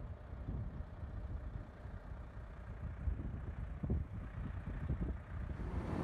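Wind buffeting the microphone: an uneven, gusty low rumble with a few stronger gusts.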